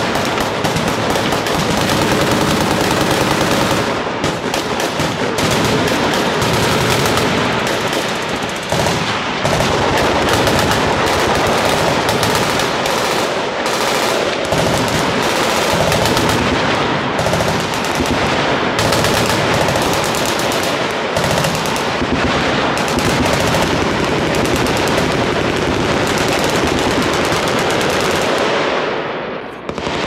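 Many machine guns firing at once from a crowded firing line: dense, continuous full-auto fire with bursts overlapping so closely that they never break. The fire fades out sharply just before the end.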